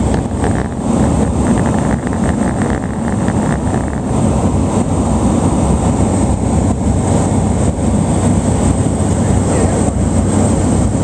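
Steady, loud drone of a small turboprop plane's engine and propeller, heard from inside the cabin while descending on approach to land.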